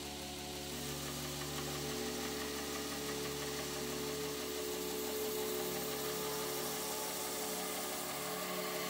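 Background music of held low tones that change pitch every second or two, over a steady hiss.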